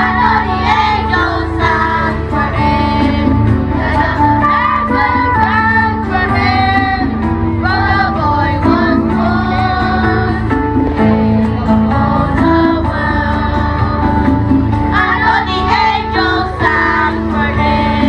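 A song with high singing voices over musical accompaniment, loud and continuous.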